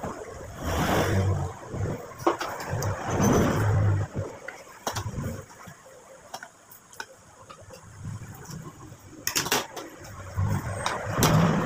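Close-miked chewing and munching of food in uneven spells, with a few sharp clinks of a spoon and fork against a plate.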